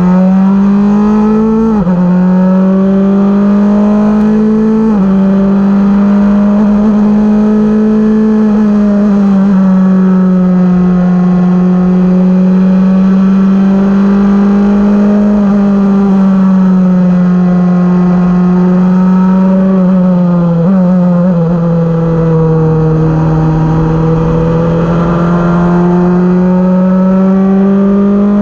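Van Diemen F2000 open-wheel race car's four-cylinder engine at racing speed, heard from the cockpit. Its pitch climbs under acceleration and drops sharply at upshifts about two and five seconds in, sags through a slower stretch in the middle, then climbs again.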